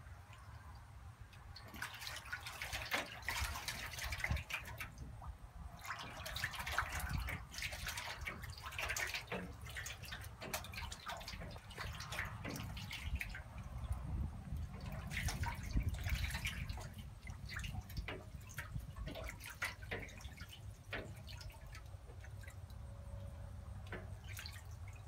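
A duck bathing in a tub of water, splashing in several bouts with drips and small slaps of water between them.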